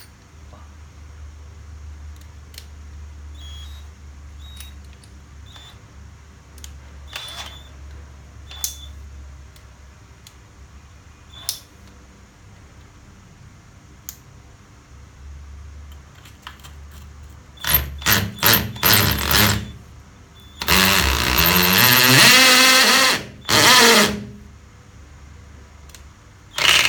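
Cordless hammer drill, sold as a DeWALT DCD700, driving a bit into concrete: after a stretch of low hum and faint clicks it runs in several short trigger bursts, then a longer run of about two seconds with its pitch rising, then another short burst and more near the end. The bit is a wood/metal bit rather than a masonry bit, and it is not getting into the concrete.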